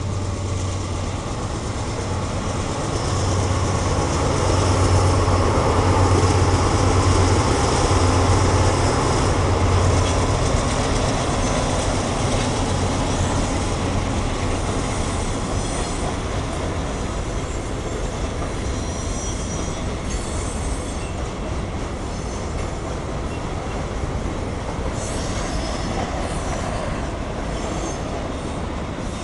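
CSX mixed freight train passing close by. The diesel locomotives' engines give a deep drone that peaks and fades over the first ten seconds or so. Then the freight cars roll past with steady wheel-on-rail noise and bouts of high wheel squeal.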